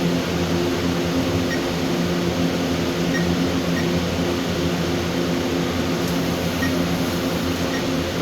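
A steady room hum with low droning tones runs throughout. Over it come about six short, faint electronic beeps at uneven intervals, the alarm keypad answering each button press as a zone name is keyed in.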